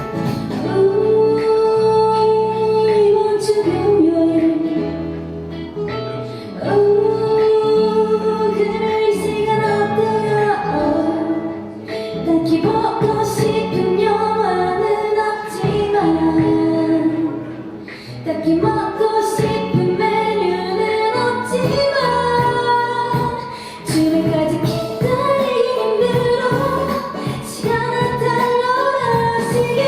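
A woman singing a Korean pop song live, with instrumental accompaniment, in a melodic phrase-by-phrase line with short breaks between phrases.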